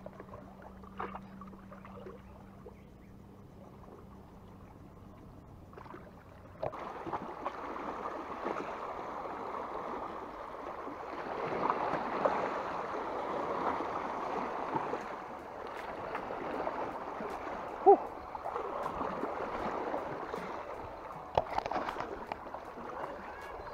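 Seawater washing and lapping against shoreline rocks, a fluctuating rushing that starts abruptly about seven seconds in. Before it there are only faint handling clicks, and a single sharp knock comes near the end.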